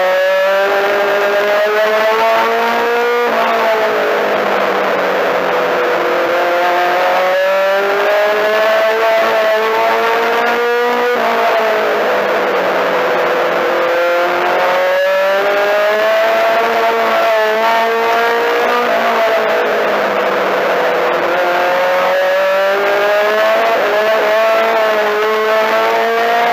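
Four-cylinder Mini-Stock race car engine heard from inside the car at racing speed. It revs up in a steady climbing pitch for a few seconds, then drops back as it lifts for a turn, over and over through the laps.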